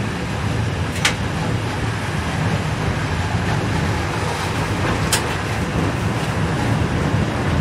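Tram running along street track, heard from inside the driver's cab: a steady low rumble of the motors and wheels on the rails, with two sharp clicks, about a second in and about five seconds in.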